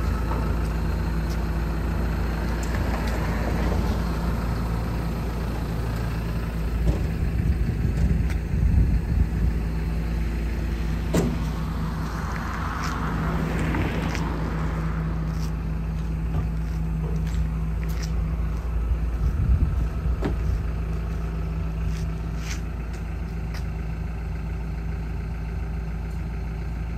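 The diesel engine of a Hyundai R170W-7A wheeled excavator idling steadily, a low drone with a few brief louder stretches.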